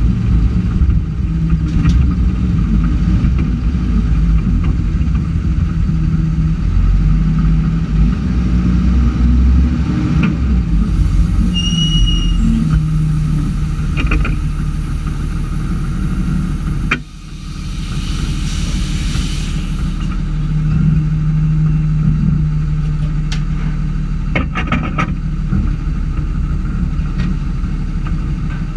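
Yard tractor's diesel engine running steadily, heard inside the cab, with a stretch of hissing in the middle and a few clicks and knocks from the controls.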